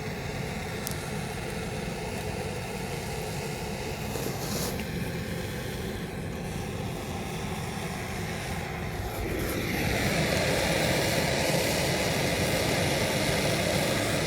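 Handheld gas soldering torch burning steadily as it heats a copper pipe joint for soldering. The flame noise grows louder about two-thirds of the way through.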